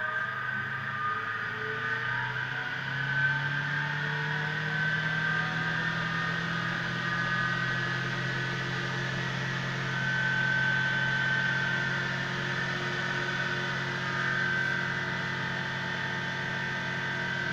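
Spin dryer's electric motor and drum spinning with a steady hum that rises a little in pitch over the first few seconds as the drum comes up to speed, then holds. It runs freely now that the cut brake cable, which had kept the motor braked, has been replaced.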